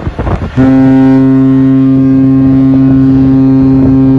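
Passenger ship's horn sounding one long, steady blast as the ship leaves port, starting about half a second in.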